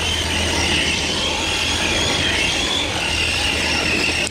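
Electric RC cars' motors whining at speed, the high pitch wavering up and down with the throttle, over the rush of tyres tearing through dry leaves and dirt.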